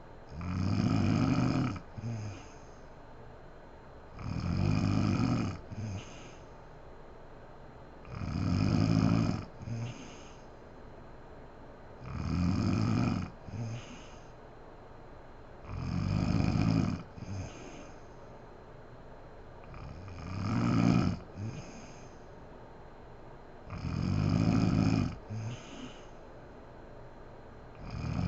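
A sleeping woman snoring evenly, one snore of just over a second about every four seconds, each followed by a short second puff of breath.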